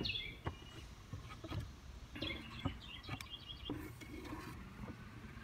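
A few light wooden knocks and clicks as croquet balls and mallets are handled and a wooden ball is fitted into the wooden stand, with faint bird chirps about two to four seconds in.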